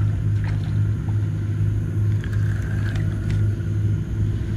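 A steady low engine drone with a slight pulse, and a few faint clicks above it.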